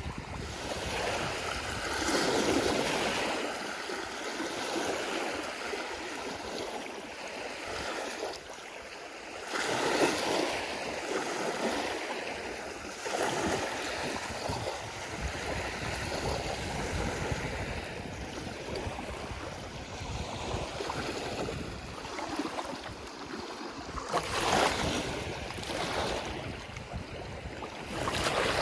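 Waves washing onto a Lake Huron shore, a steady rush of water with louder surges every few seconds as waves break, and gusts of wind rumbling on the microphone.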